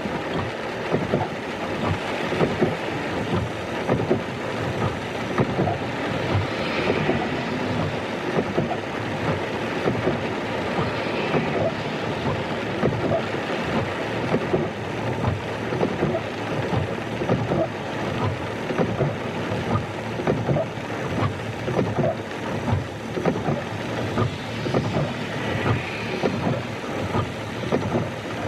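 Rain pattering on a car windshield, with slow-speed windshield wipers swishing across the wet glass.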